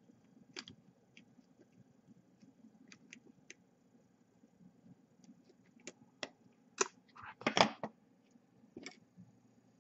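Scattered small clicks and taps of needle-nose pliers and a small screwdriver handling a quadcopter's plastic motor arm and brushless motor, with the loudest cluster of clicks about three-quarters of the way through.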